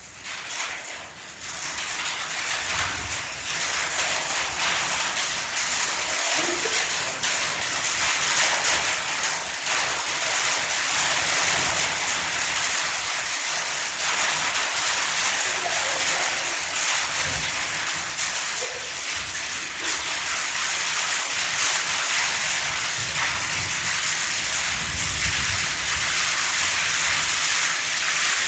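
A loud, steady hiss of noise that swells up over the first two seconds and then holds even.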